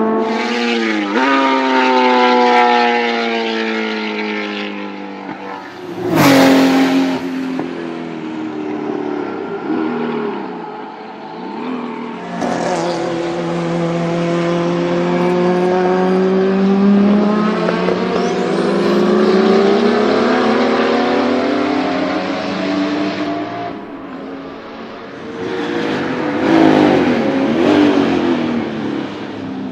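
Porsche 935 Turbo race car's turbocharged flat-six running hard, its pitch sweeping down and back up several times as it shifts and passes. There is a sudden loud burst about six seconds in.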